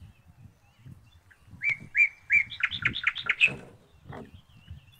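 A songbird sings one phrase: short repeated notes that start about a second and a half in, then quicken and climb in pitch before stopping. Faint low knocks sound underneath.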